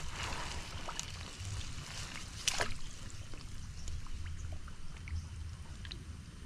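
Water sloshing and splashing over a low steady rumble, with one sharper splash about two and a half seconds in and scattered faint clicks.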